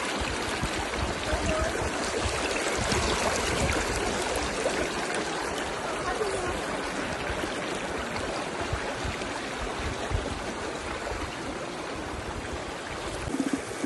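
Mountain stream rushing steadily, with irregular low rumbles underneath.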